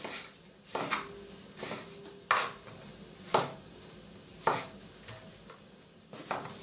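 Kitchen knife slicing king oyster mushroom on a wooden cutting board: about seven separate cuts, each ending in a knock of the blade on the board, unevenly spaced at roughly one a second.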